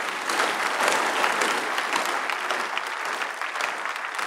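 A large congregation applauding: dense clapping that swells to its loudest about a second in, then carries on steadily and eases slightly near the end.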